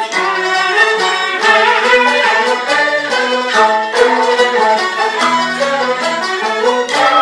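Jinghu, the Peking opera fiddle, playing a melodic instrumental passage of an aria accompaniment.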